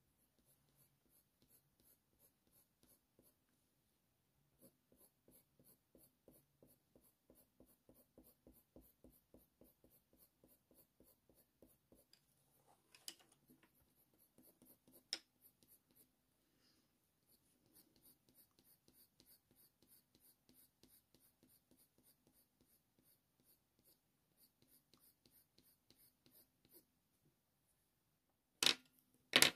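Faber-Castell Polychromos colour pencil scratching faintly on hot-press watercolour paper in quick, short strokes, several a second, laying in fur. There are a couple of sharp taps midway and two louder clicks near the end.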